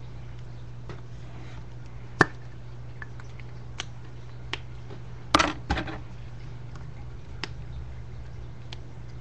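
Handling a pen and paper while drawing at a desk: a sharp click about two seconds in, a short cluster of knocks a little past halfway, and scattered light ticks, over a steady low hum.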